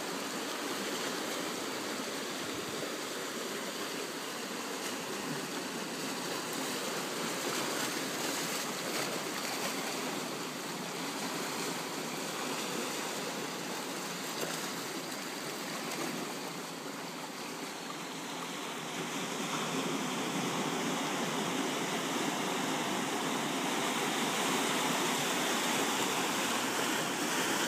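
Sea surf washing and breaking against a rocky shore: a steady rush of water, growing a little louder about two-thirds of the way through.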